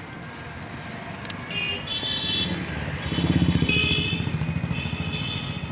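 Motorcycle engine running as the bike rides along the street, growing louder about three seconds in as it picks up speed. A high tone comes and goes over it several times.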